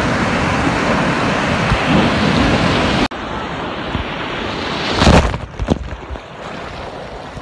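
Sea surf washing around a phone held in the water: a loud, steady rush of churning water that cuts off suddenly about three seconds in. A quieter wash follows, then a wave breaks over the phone about five seconds in, with a burst of splashing and a few sharp splashes after it.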